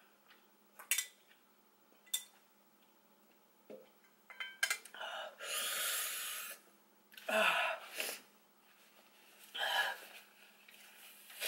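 A woman blows out hard through pursed lips and breathes heavily to cool lips burning from spicy noodles: one long hissing exhale about halfway through, then shorter puffs. Two light clicks of chopsticks against a bowl come first.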